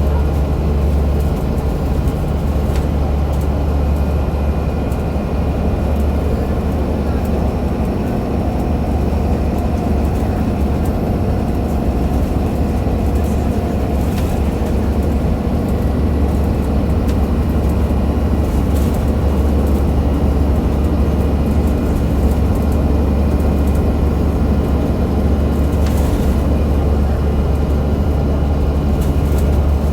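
Alexander Dennis Enviro500 MMC bus driving steadily, its Cummins ISL8.9 diesel and ZF automatic gearbox giving a continuous low drone. A thin steady whine sits over the drone, which fits the unusual axle noise the recording was made for. A couple of brief rattles come through, about halfway and near the end.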